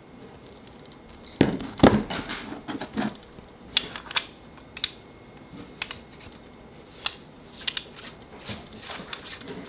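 Irregular clicks, taps and clatter of small hard parts being handled. The loudest cluster of knocks comes about 1.5 to 3 seconds in, with scattered single clicks after it.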